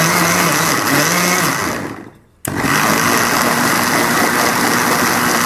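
Electric mixer-grinder (mixie) running at speed, blending cake batter with sugar and custard powder. About two seconds in, the motor winds down to a stop, then starts again abruptly and runs on steadily.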